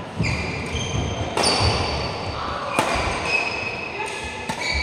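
Badminton rally: about four sharp racket hits on the shuttlecock, roughly a second and a half apart, ringing in a large hall, with high squeaks of shoes on the court mat between them.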